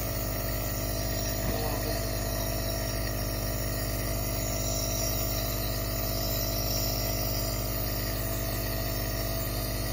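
Nebulizer air compressor running with a steady hum and hiss, driving a breathing treatment through a face mask.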